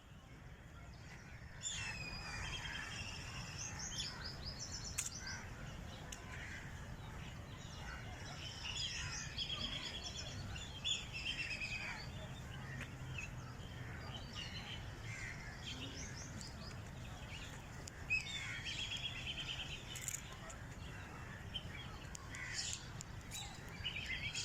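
Many birds chirping and calling at once, with rapid trills of repeated notes, over a steady low rumble.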